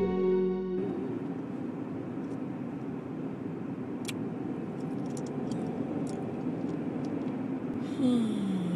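Steady road and engine noise inside a moving car's cabin. Guitar music cuts off under a second in, and a short tone slides down in pitch near the end.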